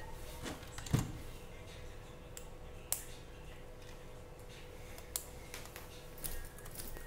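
Sony VPL DX102 projector's plastic parts being handled and fitted together by hand: a few sharp clicks and knocks, the loudest about a second in, with others near three and five seconds, over a faint steady hum.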